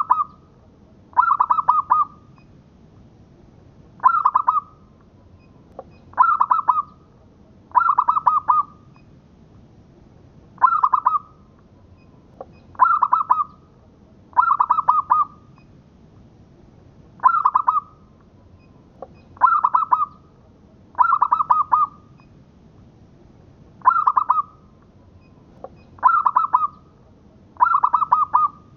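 Zebra dove (local perkutut) cooing: a short, rapidly pulsed coo repeated every two seconds or so, about a dozen times.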